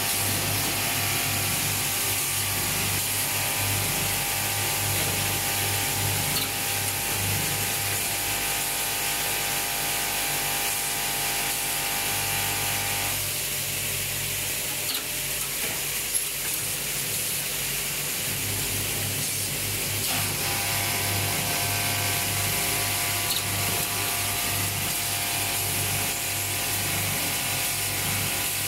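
Automatic coil nail welding machine running steadily with a low hum. A set of high, steady tones drops out for several seconds midway and then comes back.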